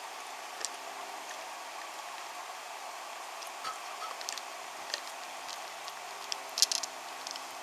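Wooden toy freight train pushed by hand along wooden track: its wheels and wagons give scattered light clicks and clatters, with a cluster of sharper clicks near the end, over a steady hiss.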